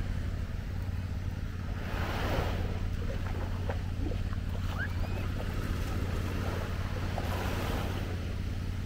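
Sea waves washing onto a sand beach, the surf swelling about two seconds in and again near the end, over a steady low rumble.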